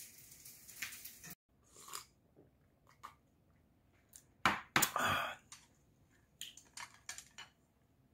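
Tableware handled at a meal: a soft hiss that cuts off abruptly just over a second in, then scattered light clicks of bowls and chopsticks, with two louder clatters about halfway through.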